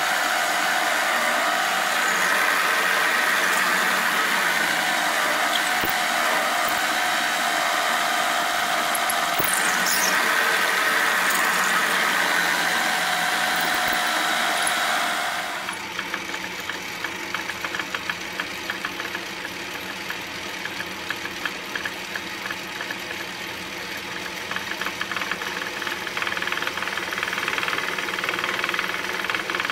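Milling machine drilling into an aluminum block with a long twist drill: a loud, steady cutting noise with a wavering squeal. About halfway through it switches to a quieter metal lathe turning an aluminum part, a steady run with fine rapid ticking.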